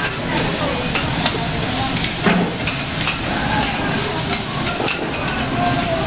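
Clams and an okonomiyaki pancake frying on a flat steel teppan griddle: a steady sizzle, with sharp clicks and scrapes of a metal spatula on the griddle.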